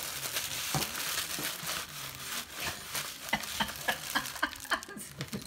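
A plastic bread bag crinkling and rustling as a Maine Coon cat grabs at it and a hand pulls on it. There is a run of sharper crackles in the second half.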